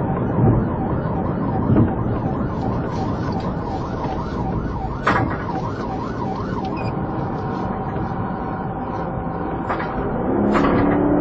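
Police car siren in a fast yelp, its pitch rising and falling about three times a second, switching to a steady held tone about two-thirds of the way in, over the road and engine noise of a moving cruiser. There are a couple of short sharp knocks, one near the middle and one near the end.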